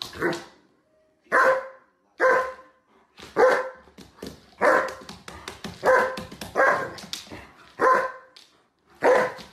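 German Shepherd dog barking in play, about nine deep barks spaced roughly a second apart, as it lunges at a hand swiping at its paws.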